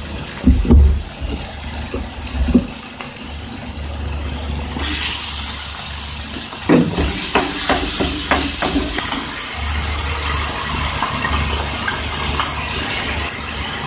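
Onions and ground chicken sizzling in a non-stick frying pan; the sizzle grows louder about five seconds in. Around the middle a wooden spatula scrapes and taps against the pan several times as the meat is broken up, over a low steady hum.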